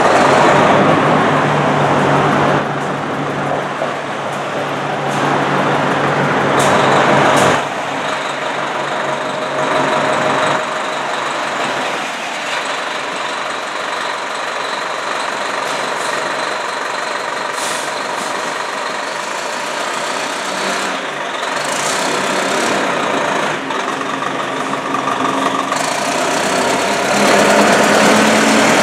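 Fire engine's diesel engine running, with hisses from its air brakes. Near the end the engine note rises as the truck pulls out.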